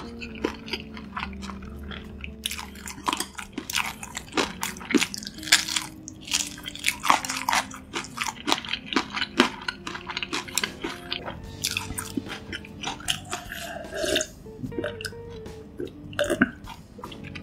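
Close-miked eating sounds: chewing and sharp crunching of crisp food in quick irregular bites, over soft background music.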